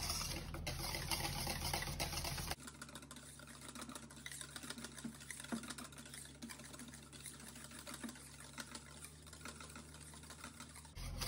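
Wire whisk beating thick cream-cheese batter by hand in a stainless steel bowl: rapid wet clicking and scraping of the wires against the bowl. It is louder for the first two and a half seconds.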